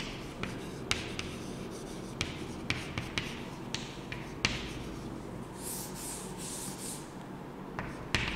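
Chalk writing on a chalkboard: a series of sharp taps as the chalk strikes the board, with a stretch of scratchy strokes around six seconds in.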